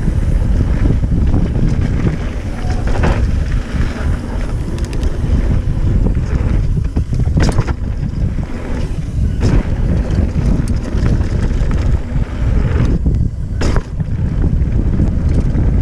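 Wind buffeting the action camera's microphone over the rumble of a hardtail mountain bike's tyres rolling fast down a dirt and gravel trail, with a few sharp clacks as the bike jolts over bumps.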